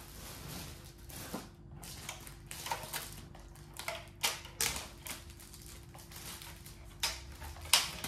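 Plastic packaging bag crinkling and rustling as a vacuum cleaner part is unwrapped by hand, with irregular sharp crackles, the sharpest just before the end.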